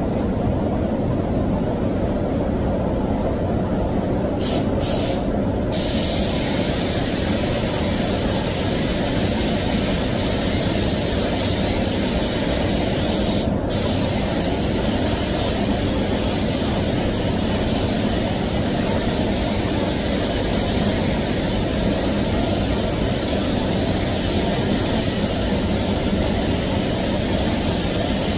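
Paint booth extraction running with a steady rumble. About four seconds in, a compressed-air paint spray gun hisses in two short spurts, then sprays steadily, cutting out briefly about halfway through.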